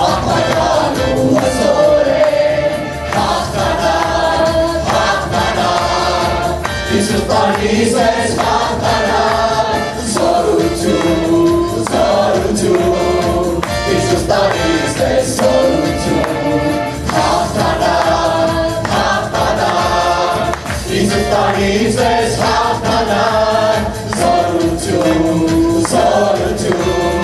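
Gospel worship song: a man sings lead into a handheld microphone while a congregation sings along, over a band with tambourine and a steady beat.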